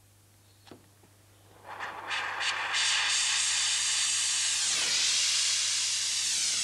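Gas blowtorch lit about a second and a half in: a few pops as it catches, then a loud, steady hiss of the flame, which dips briefly about five seconds in. The flame is heating a quartz glass rod to soften it for drawing into a fibre.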